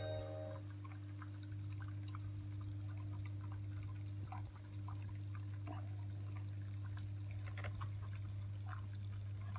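Water dripping and trickling in scattered small drops over a steady low hum.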